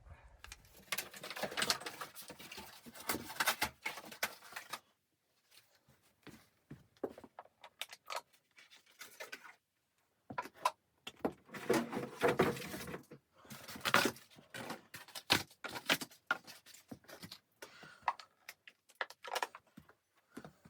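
Irregular rustling and scraping with light clicks and knocks, in clusters of a few seconds separated by short pauses, like gear being handled close by.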